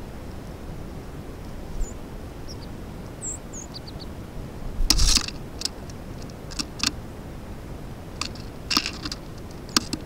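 Birds at a snowy feeder: a few faint high chirps, then several short sharp clicks and chips in small clusters, over a trail camera's steady hiss.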